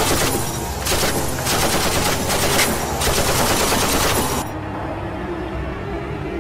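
Several bursts of rapid automatic gunfire, a fusillade of machine-gun fire that stops suddenly about four and a half seconds in.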